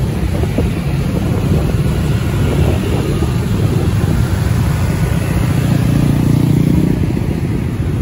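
Low, steady rumble of dense motor traffic, with motorcycle engines and a tour bus's engine running close by. One engine's note swells briefly about six seconds in.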